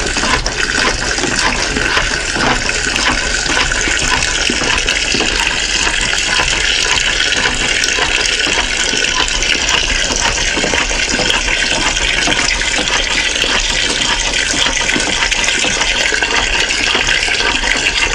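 A thin stream of water pouring from the dispenser tap of an 18.9-litre plastic water bottle into a cast-iron pot full of chopped duck, potatoes and mushrooms. It makes a steady splashing and trickling as the pot fills.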